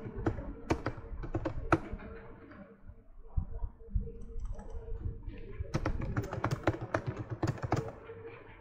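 Typing on a computer keyboard: irregular keystrokes, then a quicker continuous run of typing in the second half. A faint steady hum runs underneath.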